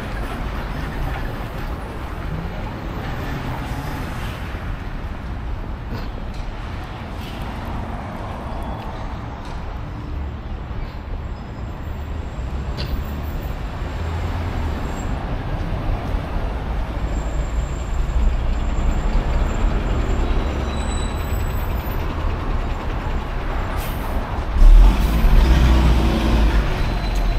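Road traffic on a city street: a steady low rumble of passing vehicles that slowly grows louder over the second half, with a sudden loud low burst about 25 seconds in.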